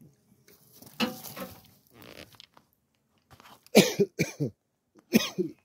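A man coughing: a few harsh separate coughs, the loudest in the second half.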